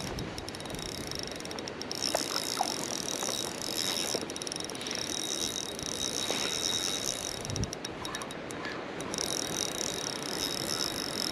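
Spinning reel being cranked, its gears and rotor giving a steady whirring as line is wound in on a hooked trout, pausing briefly about a second in and again near the end.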